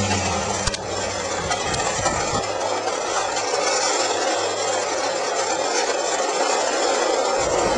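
RipStik caster board wheels rolling over asphalt gritty with sand and road salt, a steady rough rolling noise that grows slightly louder toward the end. A low hum fades out in the first second, and there is one click just under a second in.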